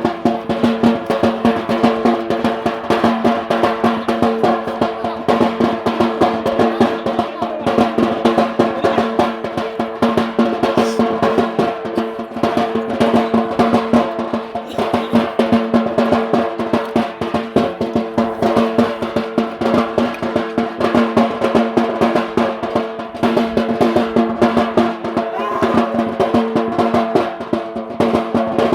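Fast, continuous drumming for a Yemeni bara' dance, with a steady held tone from a wind instrument sounding over the drums.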